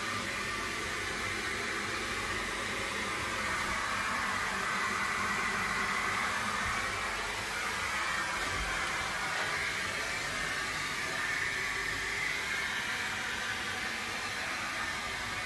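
A steady rushing hiss with no distinct tone or rhythm.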